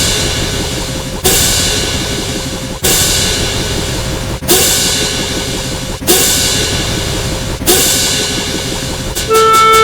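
A crash cymbal struck together with a drum, each hit ringing away, repeated about every second and a half. Near the end a loud steady buzzing tone with rapid clicks cuts in.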